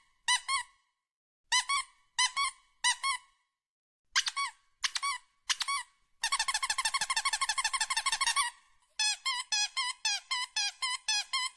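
Squeaky dog toy, likely a rubber duck, being chewed by a dog: separate squeaks at first, then two long runs of rapid squeaking, several squeaks a second, from about halfway in.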